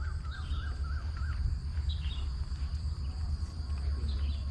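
Outdoor ambience: a steady high-pitched insect drone with scattered bird chirps over a low wind rumble. A wavering, warbling call runs through the first second or so.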